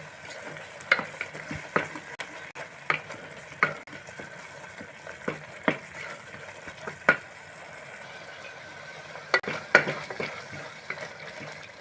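Spatula stirring a masala of mutton, tomatoes, coriander and green chilies frying in a pressure cooker pot: a steady sizzle with irregular knocks and scrapes of the spatula against the pot.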